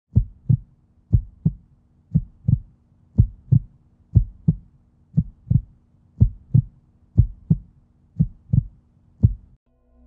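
Heartbeat sound effect: low double thumps, lub-dub, about one pair a second, ending on a single beat shortly before the end.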